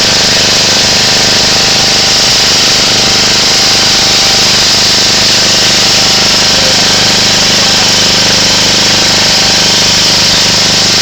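Pressure washer running steadily at full pressure: a constant machine drone under a loud hiss of water spray.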